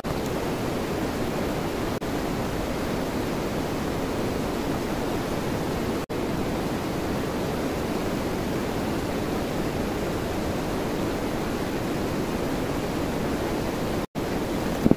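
Steady rushing of a river over rocks, an even, unbroken noise that cuts out for an instant twice, about six seconds in and near the end.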